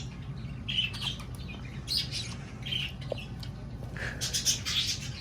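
Budgerigar chirping and chattering in short, scattered calls, with a busier flurry of chirps about four seconds in.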